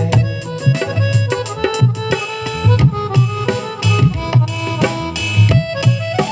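Instrumental bhajan music: a Roland XPS-30 keyboard plays the melody over a steady, regular rhythm of dholak and percussion.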